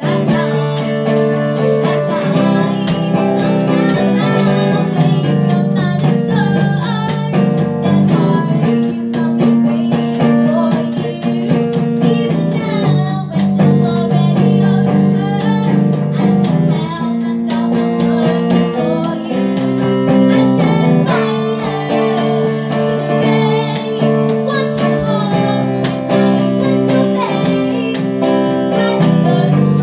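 A girl singing a song into a microphone over a guitar accompaniment.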